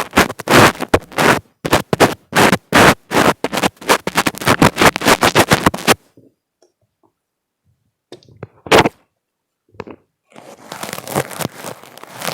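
Fingers rubbing and tapping directly on an earphone microphone, giving loud, quick crackling scratches for about six seconds. After a pause of about two seconds there are a few light touches and one sharp tap, then a steadier, softer rustling toward the end.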